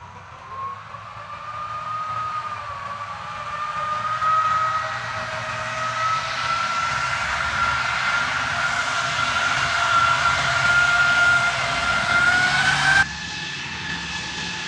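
M270 MLRS tracked rocket launcher driving: a high whine over a low rumble, rising slowly in pitch and getting louder as it approaches. Near the end the sound changes abruptly to a steadier, higher whine.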